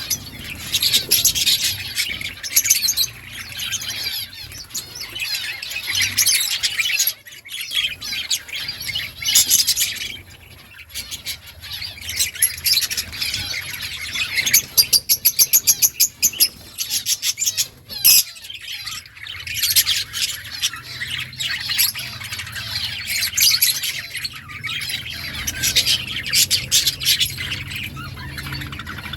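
A colony of budgerigars chattering and chirping together, with overlapping warbles and short calls and a quick run of rapid, evenly repeated notes about halfway through.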